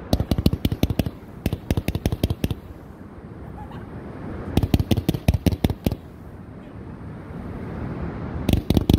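Pyroland "Ghost Stories" 30-shot 500 g firework cake going off: rapid strings of sharp cracks and bangs in three volleys. The first runs for the first couple of seconds, the second starts about halfway, and the third begins near the end.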